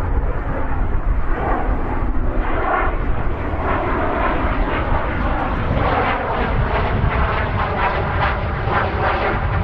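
MiG-15 jet fighter's single turbojet engine in flight overhead: a continuous jet rumble and hiss, its hiss growing stronger a few seconds in as the jet climbs and banks.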